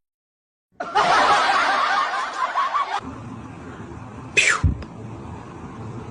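Laughter for about two seconds, then a quieter background and a short swishing sound with a thump about four and a half seconds in.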